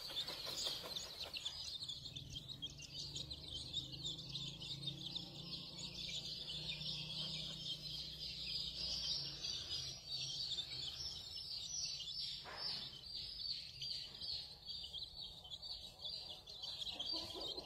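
A brood of newly hatched chicks peeping continuously, many short high calls overlapping into a steady chorus.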